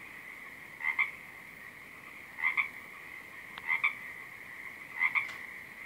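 A frog croaking: four short double croaks, about one every second and a half, over a steady high-pitched drone.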